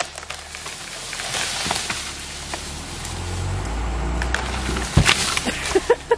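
A large hollow, rotten tree limb tearing away from the trunk under a strap pulled by a truck, with a rustling of leaves and branches as it comes down. About five seconds in it hits the ground with a loud thud, followed by a few smaller snaps and knocks.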